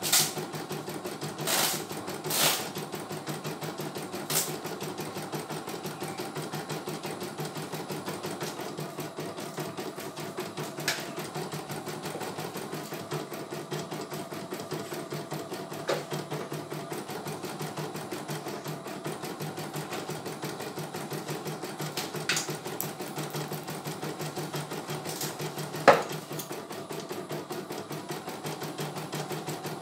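CNY E900 computerized embroidery machine stitching a design, its needle running at a fast, even rhythm, with a few sharper clicks along the way, the loudest near the end.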